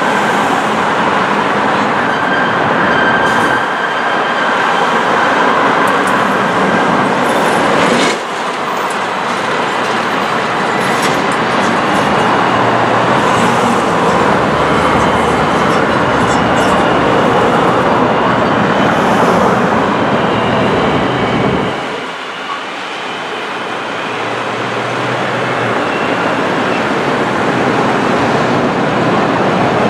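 Los Angeles Metro light rail train running over an elevated curved viaduct, its wheels clacking on the rails with a thin steady squeal, over the noise of street traffic.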